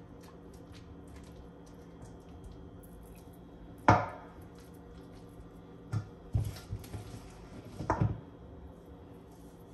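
Kitchen utensil knocking against a dish or board while spinach-and-cheese filling is spread into a cut chicken breast: one sharp knock about four seconds in, then a cluster of smaller knocks a couple of seconds later, over a steady low hum.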